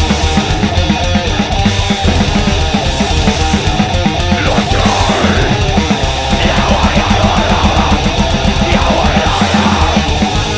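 Loud heavy metal music: distorted guitars over very fast, pounding drumming.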